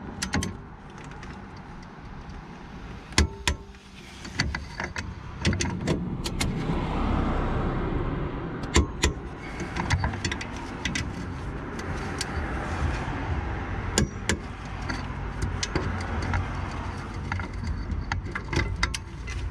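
Click-type torque wrench ratcheting and clicking as it tightens the four rear wheel hub bolts, in scattered sharp metallic clicks. The clicks signal the bolts reaching the set torque of 16 newton metres. A steady low rumble lies under them.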